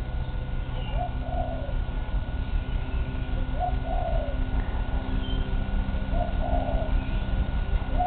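An animal's soft two-note call, a short note followed by a longer one, repeated about every two and a half seconds, over a steady low hum.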